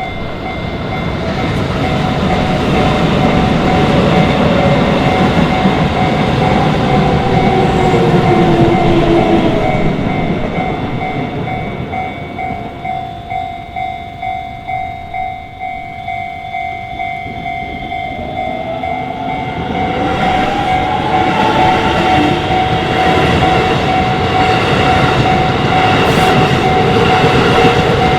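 Shin-Keisei electric trains passing through a level crossing, with the crossing's warning bell ringing steadily throughout. One train goes by in the first ten seconds. After a quieter, pulsing stretch, another train comes through, starting with a rising whine.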